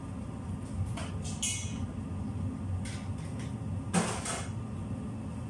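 Kitchen clatter: a few short knocks and clinks, about a second in, near three seconds, and loudest at about four seconds, over a steady low hum.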